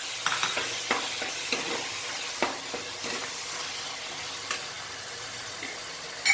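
Ginger-garlic paste frying in hot oil with a steady sizzle, while a spatula stirs it and knocks against the pan in scattered clicks.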